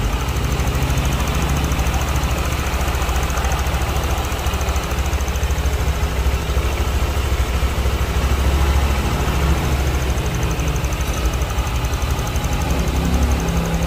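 Honda Vario scooter's single-cylinder four-stroke engine idling steadily, running smoothly and not rough, with a newly fitted cam chain tensioner.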